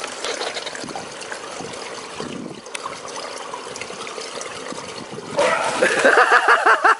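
Swimming-pool water sloshing and trickling, then a sudden splash about five seconds in as a swimmer bursts up from underwater. Right after, a person gives loud, high-pitched, quickly repeated cries.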